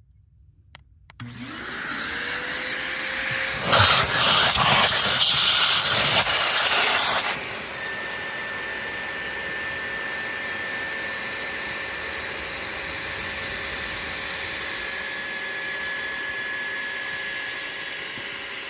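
Electric air pump spinning up about a second in and running, loud with rushing air for about six seconds, then settling to a steadier, quieter hum as it inflates the Mini-Max to test the repaired relief valve.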